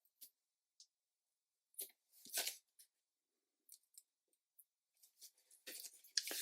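Quiet handling noises on a work surface: a few brief rustles and soft clicks, a louder rustle about two and a half seconds in, and a longer scraping rustle near the end.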